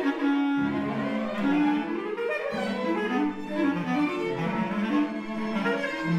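Background music played on bowed strings, with low sustained notes that move from one pitch to the next every second or so.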